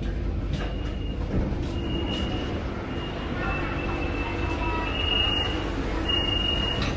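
BTS Skytrain train running with a steady low rumble, and a thin high tone that keeps starting and stopping over it.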